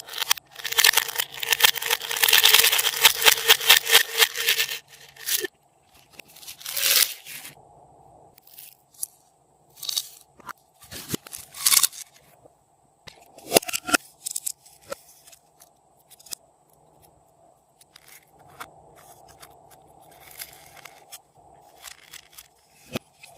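Glossy slime being squeezed, stretched and mixed by hand, crackling and popping: a dense run of sticky crackles for the first few seconds, then scattered shorter squishes and pops.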